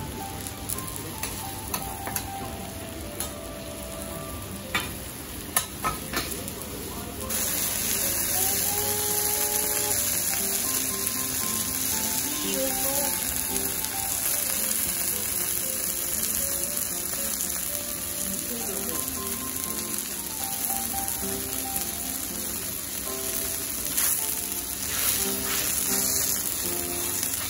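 Hiroshima-style okonomiyaki sizzling on an iron teppan griddle, with metal spatulas clicking and scraping on the plate in the first few seconds. About seven seconds in the sizzle suddenly gets louder and then holds steady. Faint background music plays underneath.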